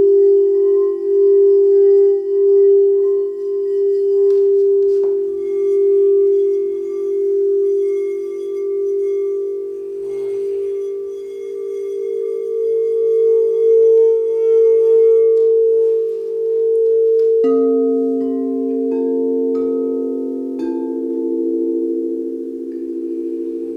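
Crystal singing bowls ringing together in long overlapping tones that pulse slowly. Near the end, three fresh bowl tones come in a second or two apart.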